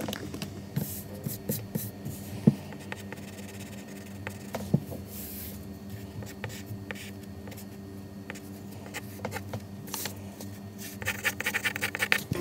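Pencil scratching and sketching on paper, with a few sharp knocks and handling sounds; a quick run of scratchy strokes comes near the end.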